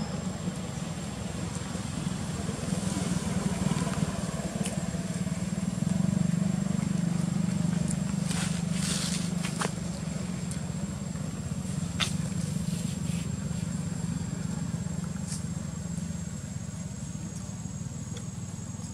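A motor vehicle's engine with a low steady hum that swells about six seconds in and slowly fades, with a few sharp clicks over it.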